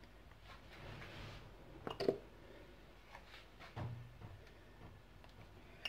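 Faint handling sounds of a metal spoon in a sifter of flour, with one sharp click about two seconds in and a few softer knocks later.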